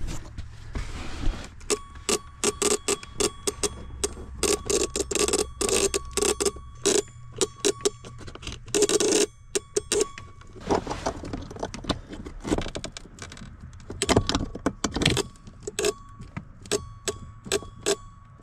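Hands clicking and rattling plastic parts under a pickup's dashboard while unscrewing and pulling out the blower motor resistor: many sharp clicks and knocks over a low steady hum.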